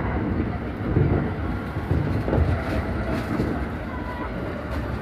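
Electric commuter train's running noise heard from inside a passenger car as it comes into a station: a steady low rumble with a few heavier low thuds.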